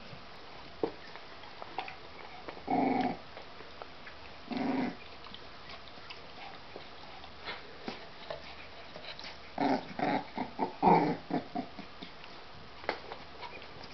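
American Staffordshire Terrier puppies giving short growls while play-fighting: two about three and five seconds in, then a quick run of them near the end, with faint clicks between.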